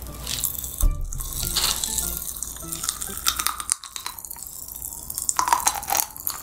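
Popping candy crackling in the mouth: a dense run of tiny, irregular pops and snaps, with soft background music.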